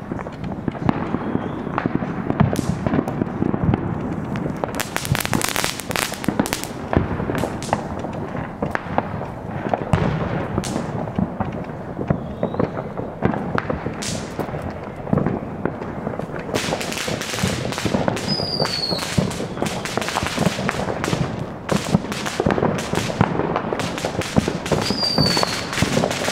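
Fireworks and firecrackers going off all around the neighborhood: a continuous din of pops, bangs and crackles with no let-up.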